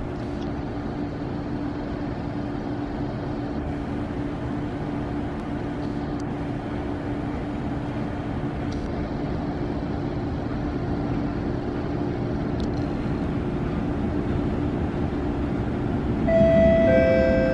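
Low steady hum with the rumble of an approaching SMRT C151 train in the tunnel, growing slowly louder. About sixteen seconds in, the station's announcement chime sounds in stepped tones, the second lower than the first.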